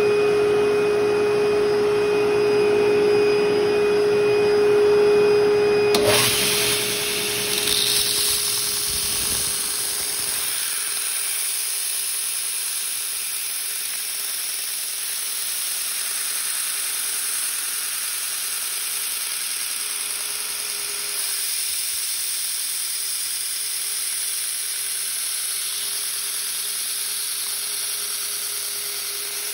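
Belt sander running a 36-grit ceramic abrasive belt, first with a steady hum. From about six seconds in it turns into a continuous hiss as the plastic housing of a Nokia 3220 phone is pressed against the belt and ground away.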